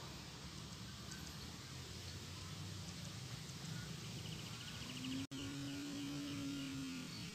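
Quiet rice-field ambience with a steady low rumble, a short fast high trill about four seconds in, and a low steady hum lasting about two seconds near the end; the sound drops out for an instant just before the hum.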